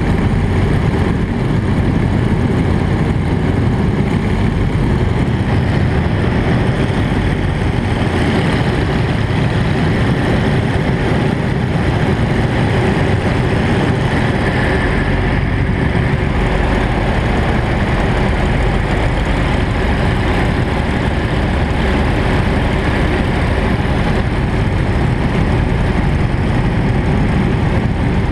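Nanchang CJ-6's nine-cylinder radial engine and propeller running steadily in cruise flight, heard inside the cockpit as a constant loud drone.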